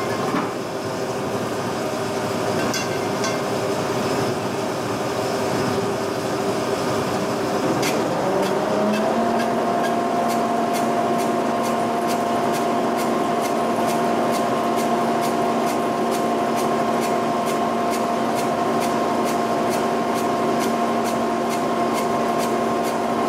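G&L horizontal boring mill running with a steady mechanical whir and hum. About eight seconds in, its pitch rises and settles higher. From then on a faint tick repeats a little under twice a second.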